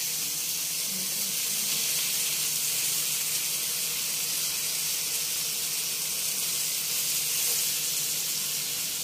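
Bacon strips sizzling steadily in a nonstick frying pan, frying in their own rendered fat with no oil added.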